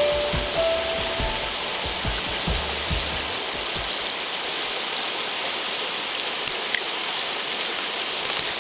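Creek water rushing steadily over a shallow riffle, an even hiss. A few low thumps and brief tones sound in the first three seconds and then fade.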